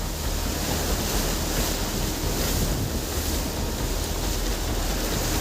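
Steady rush of water from waves, with wind buffeting the microphone.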